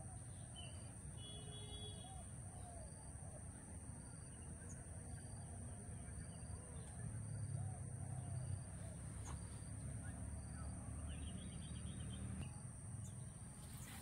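Faint outdoor ambience of birds calling: a short call about a second and a half in and a quick run of chirps near the end. Under them runs a low rumble, louder in the middle, and a steady high-pitched whine.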